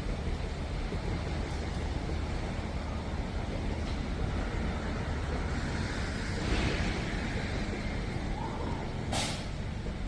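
Touchless automatic car wash machinery running with a steady low hum and hiss, a louder hiss swelling about six and a half seconds in, and a short sharp hiss near the end.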